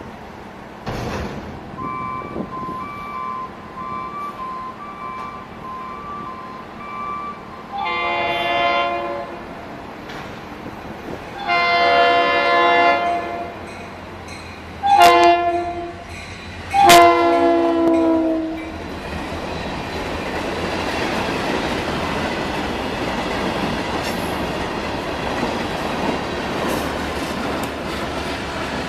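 A freight locomotive's horn sounds the grade-crossing signal: two long blasts, a short one, then a long one that drops slightly in pitch as it passes, following a crossing bell ringing steadily. Then the freight train rolls by with a steady rumble of wheels on rail.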